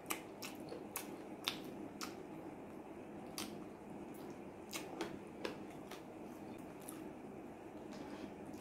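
Close-up eating sounds of a man eating fried chicken by hand: wet lip smacks and mouth clicks while chewing and pulling meat from the bone, coming at irregular moments, some in quick pairs, over a steady low room hum.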